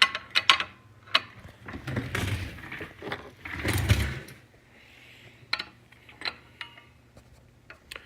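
Metal clicks and knocks as a punch and a hard drive are repositioned under a bottle-jack shop press, with two longer scraping noises about two and four seconds in.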